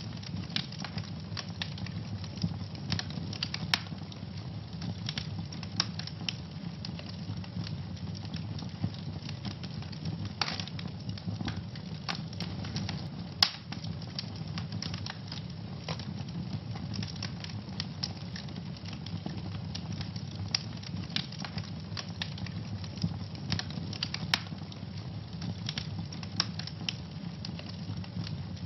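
Wood fire burning in a fireplace: a steady low rumble with constant irregular crackling and a few sharper, louder pops.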